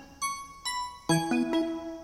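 Background music: a light keyboard melody of struck notes that ring and fade, a few notes a second.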